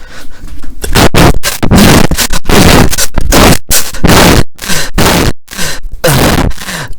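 A man's heavy, panting breaths blown straight into the microphone, so loud and distorted that they sound like gusts of storm wind. The breaths come as a rapid string of blasts, each a second or less, a few with a faint voiced huff in them.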